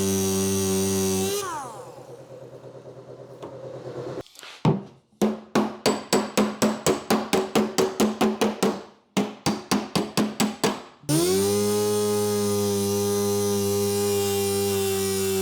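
Hammer blows on steel body panel, about three a second in two runs with a short pause between, each strike ringing. Before and after, a steady humming drone winds down about a second in and starts up again near the end.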